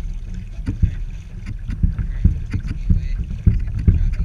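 Muffled low rumble with irregular knocks, several a second, from a Hobie Revolution 13 fishing kayak under way on small waves, heard through a GoPro's waterproof housing.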